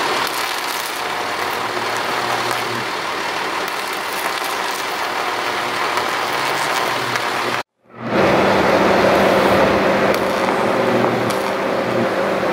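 Parked fire engine running, a loud, steady engine noise with an even hum. It breaks off for a split second about two-thirds through and resumes with a steadier low hum.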